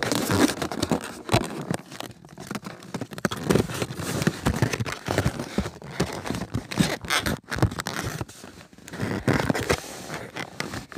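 Irregular rustling, scraping and tapping of hands handling a box and its packaging close to the microphone.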